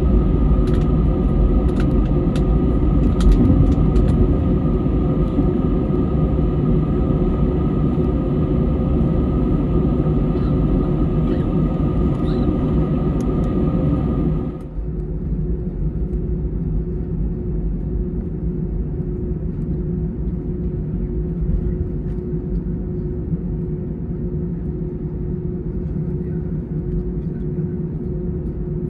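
Airbus A320 cabin noise while taxiing: the engines and air conditioning make a steady rumble with a few hums, heard from inside the cabin by the wing, with a few light clicks in the first seconds. About halfway through the higher hiss cuts off suddenly and the lower rumble carries on.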